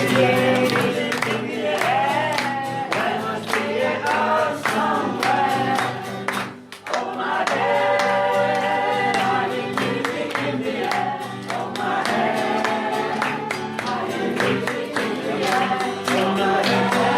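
Music with a group of voices singing over a steady accompaniment, broken by a brief pause about six seconds in.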